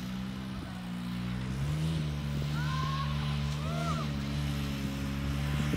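Snowmobile engine running steadily while towing a banana boat, stepping up in pitch and getting louder about a second and a half in. A few short high-pitched cries sound over it around the middle.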